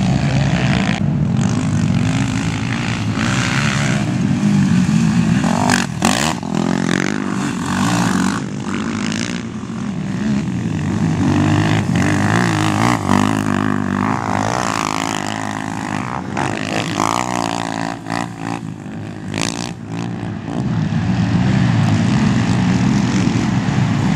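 Several racing quad bikes (ATVs) revving hard on a dirt motocross track, their engine pitch repeatedly rising and falling as they accelerate and back off.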